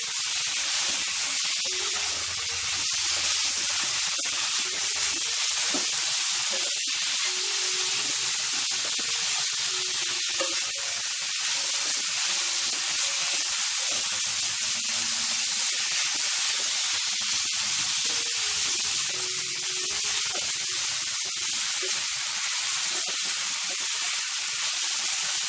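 Anchovies and coconut-spice masala sizzling in a nonstick kadai, a steady hiss, while a wooden spatula stirs and scrapes through them with scattered light knocks.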